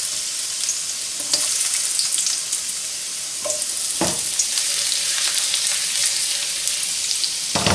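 Sliced garlic sizzling and crackling in hot olive oil in a wok, just starting to turn golden. A few sharp knocks come as it is stirred, the loudest near the end.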